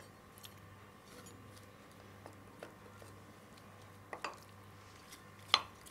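Faint, occasional taps of a wooden spatula against a glass bowl while fish pieces are turned in a thick masala coating, over a low steady hum; the clearest taps come about four seconds in and near the end.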